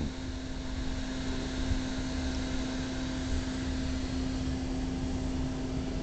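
12-volt automotive blower fan running steadily, a constant hum with rushing air as it pushes air through a soda-can solar air heater.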